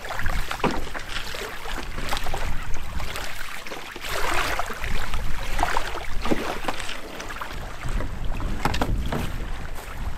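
Small waves lapping against a wooden canoe's hull and washing over shingle in irregular surges, with short ticks as the water moves the pebbles. Wind rumbles on the microphone at times.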